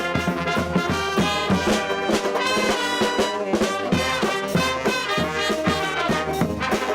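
Brass band music: trombones and trumpets playing over a steady drum beat.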